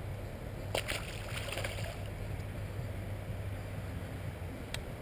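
Wind rumbling on the microphone, a steady low buffeting, with a short cluster of crackly knocks and rustles about a second in and a single click near the end.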